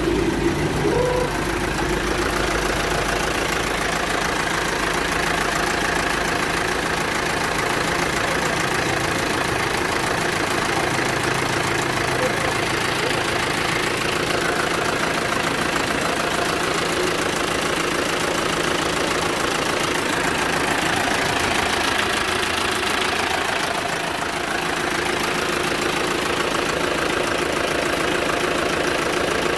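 Isuzu truck's diesel engine running steadily at idle.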